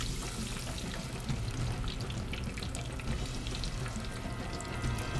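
Sliced white potatoes deep-frying in a pot of hot oil, just dropped in: a steady sizzle dense with tiny crackles and pops.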